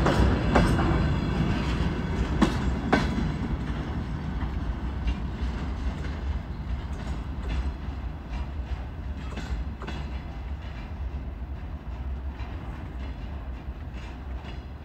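Freight train rolling by, with a few sharp wheel clacks over the rail joints in the first seconds. The rumble then fades steadily as the train moves away.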